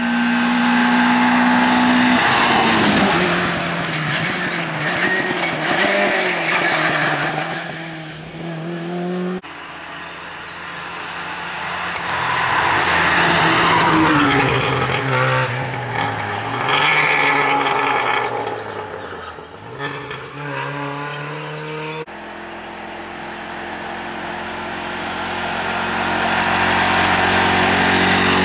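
Rally cars passing one at a time at full throttle, three separate passes. Each engine revs high, with its pitch dropping and climbing again through gear changes as the car approaches and goes by. One of them is an old Lada saloon.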